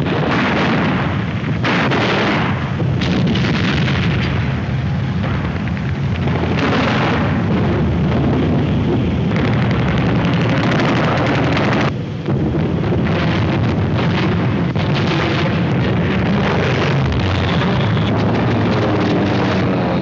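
Film battle sound effects of anti-aircraft gunfire and explosions: a dense, continuous barrage of bangs over a steady low rumble, with a brief break about twelve seconds in.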